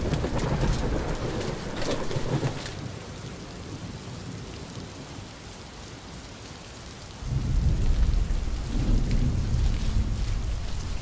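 Rain falling with rolling thunder: a deep rumble at first, dying down to a quieter patter, then a heavy roll of thunder swelling in about seven seconds in.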